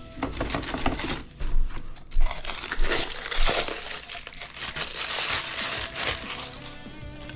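Packaging being handled and pulled off during an unboxing: irregular crinkling and rustling with short crackles, loudest in the middle.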